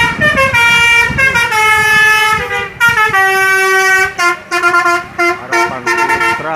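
Bus 'telolet basuri' musical horn playing a tune of held notes that step up and down in pitch, then switching to a quick run of short toots about four seconds in.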